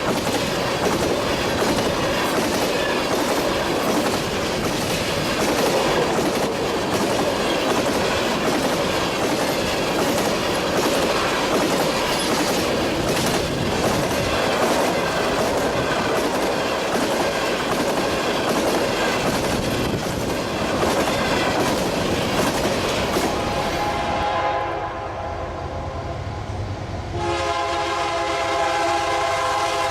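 A train rolls past with its wheels clicking steadily over the rail joints. Near the end, a locomotive horn sounds a chord of several tones.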